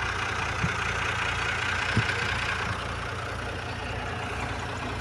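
Tractor diesel engine running steadily at idle, with two short knocks, the louder one about two seconds in.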